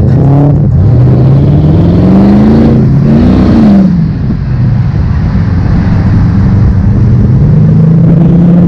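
Car engine accelerating hard and loud, its revs climbing steadily for about two and a half seconds, then dropping sharply just before four seconds in. It holds at lower revs and starts to climb again near the end.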